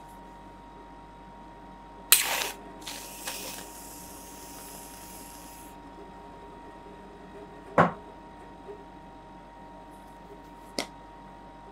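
Aerosol whipped cream can spraying: a sudden sharp hiss about two seconds in, then a longer hissing spray for about three seconds. Later a single knock, and a lighter click near the end.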